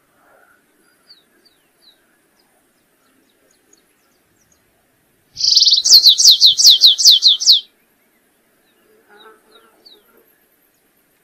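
Canário-rasteiro (stripe-tailed yellow finch) singing: one loud phrase about five seconds in, a short buzzy note followed by a quick run of about ten falling notes, lasting just over two seconds. Faint high chip notes come before and after it.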